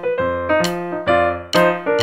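Background piano music: notes and chords struck about twice a second, each ringing and fading before the next.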